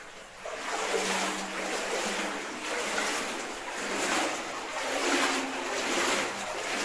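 Shallow stream water sloshing and splashing around wading feet, swelling about once a second with the steps.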